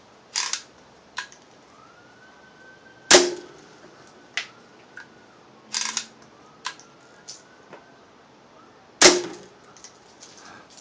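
Daisy Buck 105 lever-action BB gun firing two shots about six seconds apart, each a sharp crack. Shorter rasping strokes come before and between the shots, the gun being cocked.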